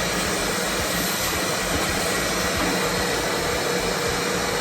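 A household appliance's motor and fan running steadily: an even rushing, whirring noise with a faint steady hum.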